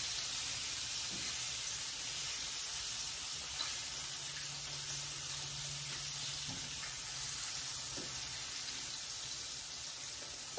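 Flour-coated chicken wings frying in a pan of hot oil: a steady sizzle, with a few faint taps.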